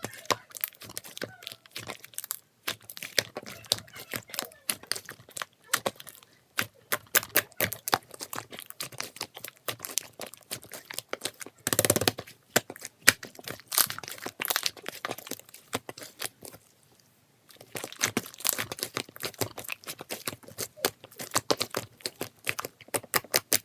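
Dense, irregular crackling and clicking, like something being crinkled or crumpled, with a short pause about sixteen seconds in.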